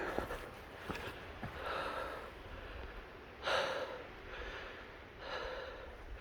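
A person breathing hard from the exertion of a steep uphill climb: three heavy breaths, the middle one the loudest, with a few light ticks early on.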